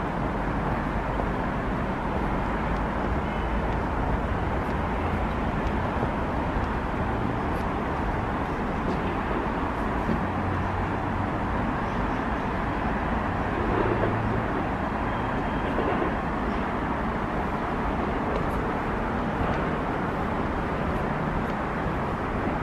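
Steady traffic rumble, an even wash of noise with no distinct events standing out.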